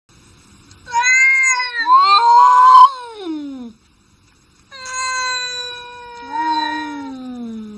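Angry cat meowing in long, wailing calls. Two calls come back to back, the second the loudest and sliding down in pitch at its end. After a short pause a third long call starts and sinks slowly in pitch.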